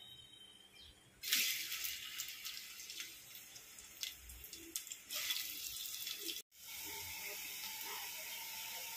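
Hot oil sizzling as sliced onions hit it, starting suddenly about a second in. After a brief break past the halfway point it settles into a steady sizzle of onions frying.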